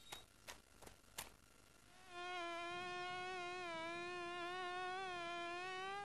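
Cartoon sound effect of a flying insect buzzing: a steady buzz with a slightly wavering pitch that starts about two seconds in, after a few light ticks.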